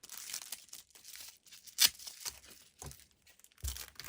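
Packaging being torn open and crinkled by hand, in irregular rustling bursts, with one sharp snap just under two seconds in.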